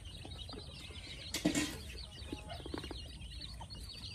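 A brief flurry of chicken wing flapping about one and a half seconds in. Around it are scattered high chirps and a few short clucks from the poultry flock.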